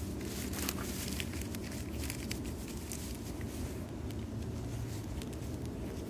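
Wood fire of sticks and twigs burning in a metal fire pit, crackling with irregular sharp pops over a steady low rumble.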